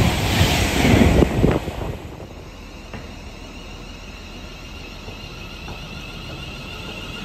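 An Avanti West Coast express train passes through at speed with a loud rush of air and wheels, which cuts off about two seconds in. A much quieter steady hum with a high whine follows as a London Northwestern class 350 electric multiple unit draws slowly into the platform.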